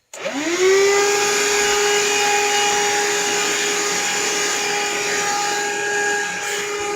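Vacuum cleaner switched on: its motor spins up with a quickly rising whine, then runs steadily with a loud, even whine and airflow rush.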